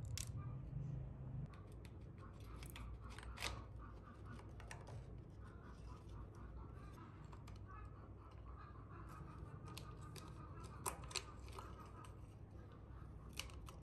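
Small clicks, taps and scrapes of a screwdriver and hands working on an electric drill's motor housing and copper-wound stator, with a few sharper clicks standing out over a low steady hum.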